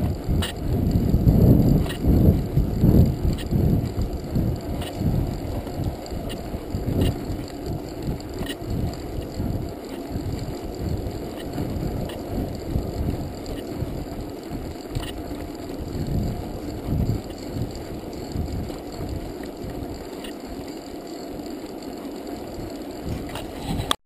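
A mountain bike rolling along a paved road: a low, uneven rumble of tyre noise and wind buffeting the GoPro's microphone, strongest in the first few seconds and easing afterwards, with occasional sharp clicks from the bike.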